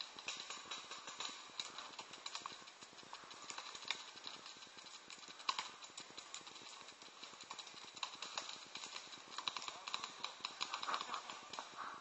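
Paintball markers firing: strings of sharp pops, several a second and irregular, thickest near the end.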